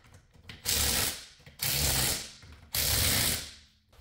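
Cordless power tool driving the lug nuts on a car wheel in three short runs about a second apart, each stopping abruptly.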